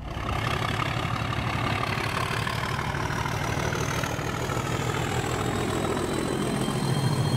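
Citroen C1's 1.0-litre three-cylinder 1KR petrol engine pulling under hard acceleration, heard from inside the cabin, with a thin whine that climbs slowly in pitch as the revs rise.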